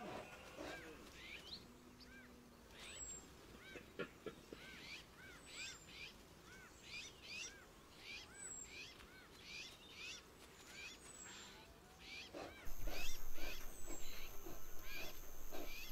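Birds calling: a run of short, arched chirps repeating about once or twice a second over a faint outdoor background, which grows louder about three-quarters of the way through.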